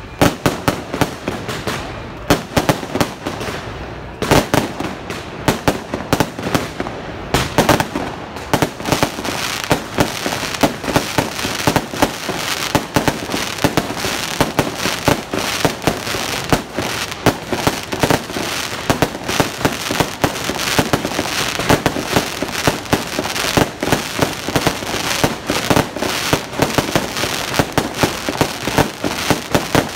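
Fireworks display with shells bursting overhead. A few separate loud bangs come first, then from about eight seconds in a dense, continuous barrage of rapid bangs and crackling.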